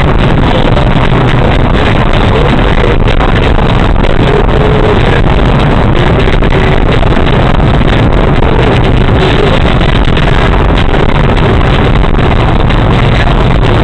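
Steady, loud driving noise of a car heard from inside the cabin through a dashcam microphone: engine hum and road rumble, with no breaks.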